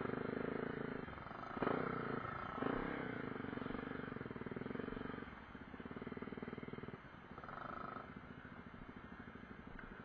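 Honda CRF250L's single-cylinder four-stroke engine running at low revs on a slow trail ride. The throttle is opened in two short bursts in the first three seconds, then the engine runs more quietly with small rises and falls.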